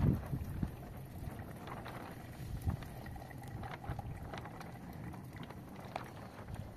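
Hot tea trickling steadily from a small metal teapot into a glass, with a low bump of handling or wind on the microphone at the start.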